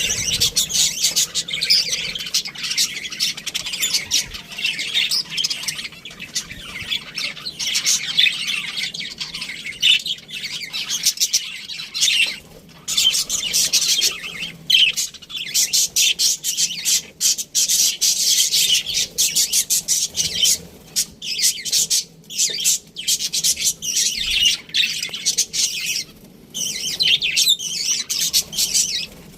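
Several budgerigars chattering and chirping together, a dense run of rapid high chirps and squawks with a few brief pauses.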